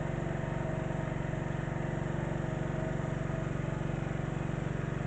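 Small stationary water-pump engine running on LPG fuel, idling steadily with a fast, even firing pulse.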